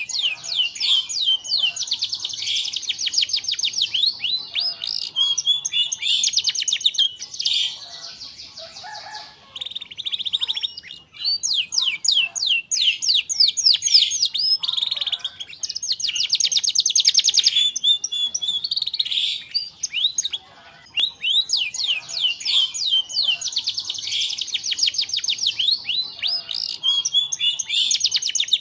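Domestic canary in full song, singing long runs of rapid, high trills and rolled notes, with a couple of brief lulls between phrases.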